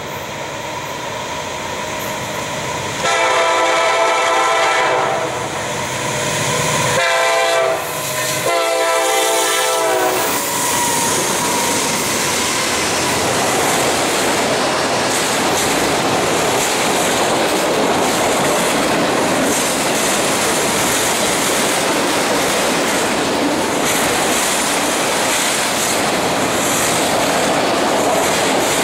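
Freight locomotive air horn sounding three blasts as the train approaches: a long one about three seconds in, then a short one and a long one from about seven to ten seconds. Then the steady rumble and clickety-clack of autorack freight cars rolling past at speed.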